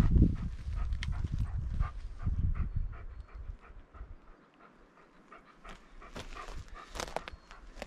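Dog panting quickly, about three breaths a second. Low rumbling and scuffing footsteps on rock are loudest in the first three seconds.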